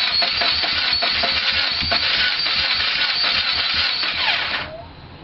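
Chevy Tracker 2.0 L engine being cranked by its starter for about four and a half seconds, with an even rhythmic chug, winding down at the end without starting. It is the first start after a timing chain replacement, and the failure to fire is taken as not a good sign.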